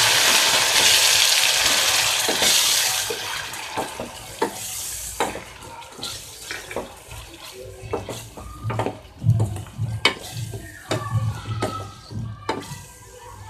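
Ginger-garlic paste sizzling loudly in hot oil with browned onions in a steel pot, the sizzle fading over the first few seconds. Then a spatula stirs the mixture, knocking and scraping against the pot many times over a quieter sizzle.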